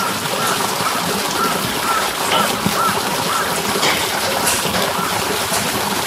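Steady rain falling and splattering. Through it, a short chirp repeats about twice a second.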